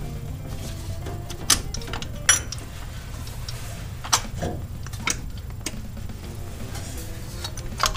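Sharp metallic clicks and knocks, about five over the span, as a power steering pump is handled and fitted against its steel mounting bracket on the engine, over a steady low hum.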